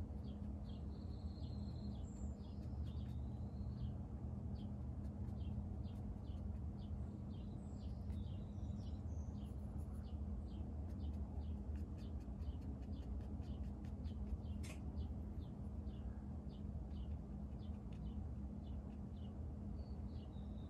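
Quiet room tone: a steady low hum with faint, irregular high chirps or ticks scattered through it, a few a second.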